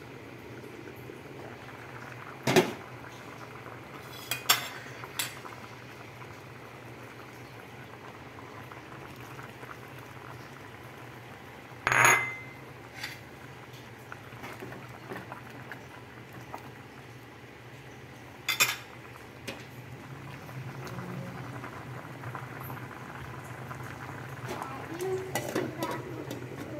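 A pot of sponge gourd (patola) and vegetables boiling on a gas stove, a steady bubbling hiss. Sharp metal clinks from the pot's lid and utensils cut in several times, the loudest about halfway through, with more small clatter near the end.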